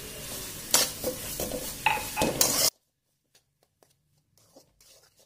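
A metal spoon scraping and clinking against an aluminium kadai as sugar is stirred into a fried banana and coconut mixture. The sound cuts off abruptly about two and a half seconds in, leaving only faint clicks.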